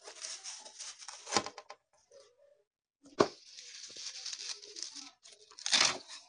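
Mustard greens being cut against a daranti, a curved hand-held sickle blade. Crisp tearing and rustling of leaves and stalks, with sharp snaps of stalks about a second and a half in and again about three seconds in, a short pause between them, and a louder stroke near the end.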